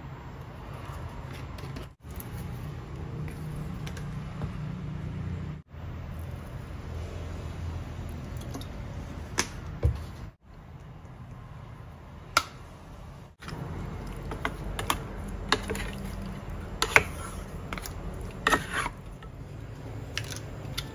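Kitchen food-preparation sounds: scattered light taps and clicks of utensils, more frequent in the second half, over a steady low hum, with the sound dropping out briefly several times.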